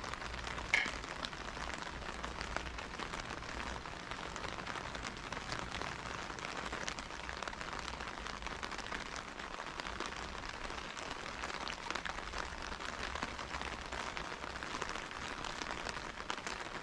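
Light rain falling steadily, an even soft patter on a wet street. A short high-pitched chirp about a second in.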